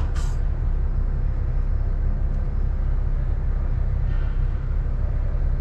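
Walk-in cooler's R-404A refrigeration compressor running just after start-up, with a steady low hum.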